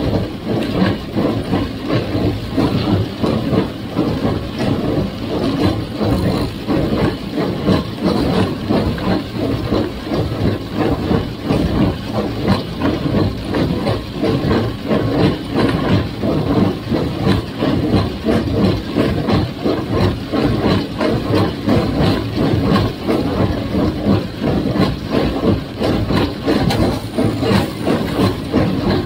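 1958 Farmall 350 gas tractor engine running steadily, with a dense, rapid mechanical clatter over it from the John Deere 348 square baler it is driving.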